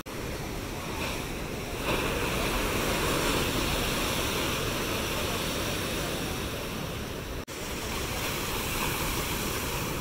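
Large ocean waves breaking and washing ashore in heavy surf, a continuous rush of water that grows louder about two seconds in. The sound cuts out for an instant about seven and a half seconds in.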